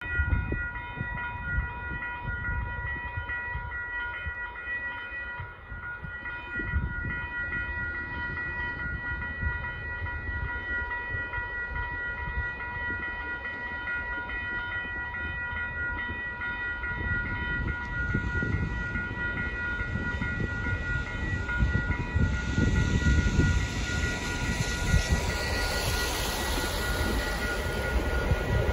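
Railroad crossing warning bell ringing steadily while the gates are down, over a low rumble. From about two-thirds of the way through, the noise of the approaching CN freight train builds and grows louder.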